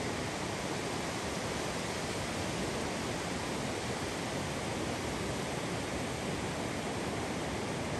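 Steady, even rush of distant ocean surf on a beach, with no breaks or single waves standing out.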